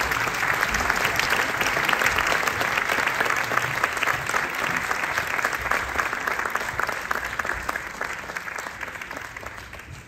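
Audience applauding, a dense crackle of many hands clapping that gradually dies away toward the end.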